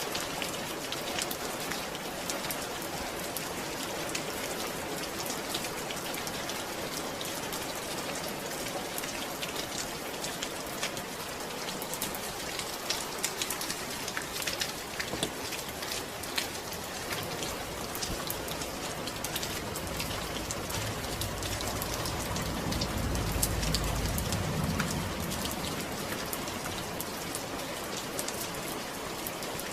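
Steady rain: an even hiss with dense pattering drops. About two-thirds of the way through, a low rumble swells for a few seconds and fades.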